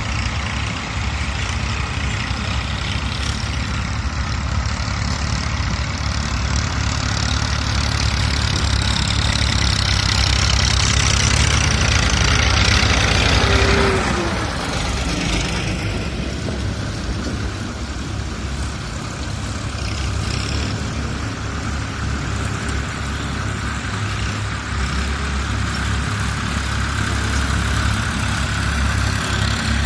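A heavy engine running steadily, with a broad rushing noise that swells to a peak about halfway through and then falls away.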